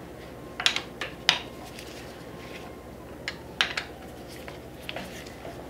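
A 6 mm hex key clinking on the steel clamp bolts of a motorcycle's upside-down front fork as the bolts are loosened: a handful of short, sharp metallic clicks spread out with pauses between them.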